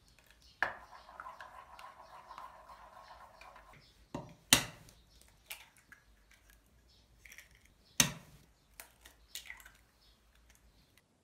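Eggs cracked on the rim of a wooden bowl: two sharp cracks about three and a half seconds apart, each followed by lighter clicks and dripping as the egg drops in. Before them, a faint steady sound from a pot of thick soup being stirred on a portable gas stove.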